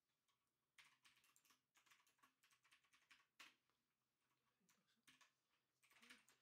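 Faint typing on a computer keyboard: quick runs of key clicks starting about a second in, a pause of about two seconds, then another run near the end.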